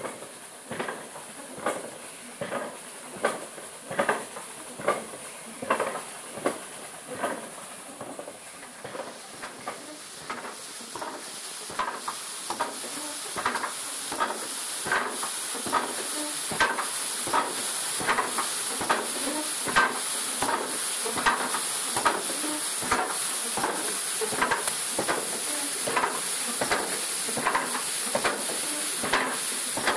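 Water-powered wooden trip hammers thudding in a steady rhythm as they crush stone into powder, about one blow every second at first, then a denser overlapping beat as more hammers are heard. A rushing hiss of water from the driving water wheel grows louder after about ten seconds.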